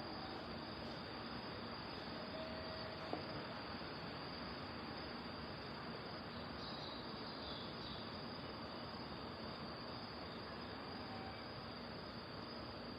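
A steady chorus of night insects chirping, with one short sharp click about three seconds in.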